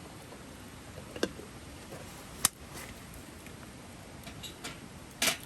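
Wood campfire crackling: a steady low hiss with a few sharp pops, the loudest just before the middle.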